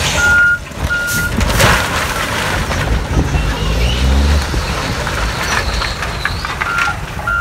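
Roll-off truck's diesel engine running while a load of broken wooden pallets slides and clatters out of its tipped container onto a pile. A backup alarm beeps a few times at the start and again near the end.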